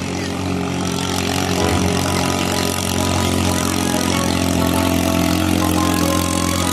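Kohler 14 HP engine of a racing ketinting longtail boat running flat out at a steady pitch during a speed run.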